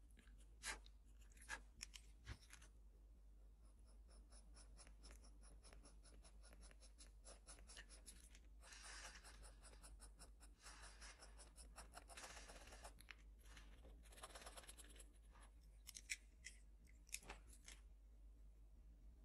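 Faint pencil scratching on kraft paper. Light ticking strokes are broken by a few sharper clicks, with longer stretches of scratchy shading about halfway through and again a little later.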